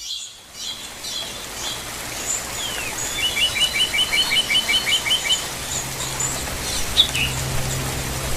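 Several birds chirping and calling over a steady hiss of rain, with one bird giving a quick run of about a dozen identical notes midway. Low, sustained music notes fade in near the end.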